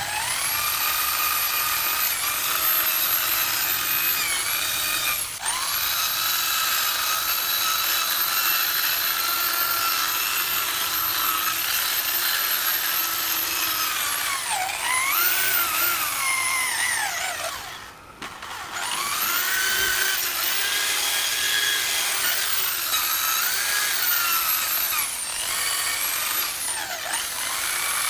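Bosch corded electric drill spinning a wire cup brush against a rusty steel wheel to strip the rust. The motor whines steadily, and its pitch sags and recovers as the brush is pressed into the metal. The drill stops briefly about two-thirds of the way through, then spins up again.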